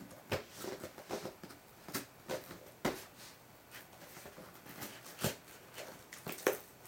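Scissors cutting and scraping along the packing-tape seam of a cardboard box: irregular scratches and rustles with a few sharper clicks.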